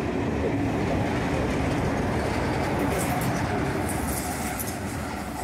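Passenger train running past at speed: the coaches' wheels rumbling and clattering on the rails, then the trailing Class 47 diesel locomotive going by near the end, with the noise starting to fall away as it leaves.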